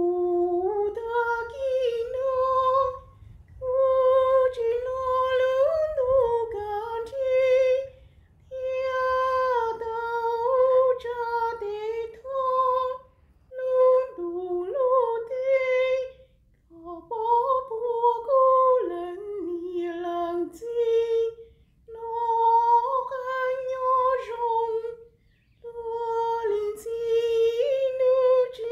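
A woman singing a Hmong folk song unaccompanied, in short high phrases with a wavering pitch and brief pauses for breath between them.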